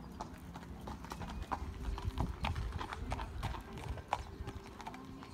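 Pony's hoofbeats at trot on a sand dressage arena, a run of short footfalls a few times a second.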